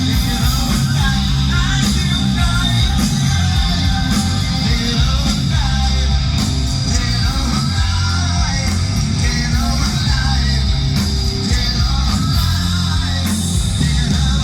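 Live rock band playing at full volume, with a steady drum beat under dense, continuous music.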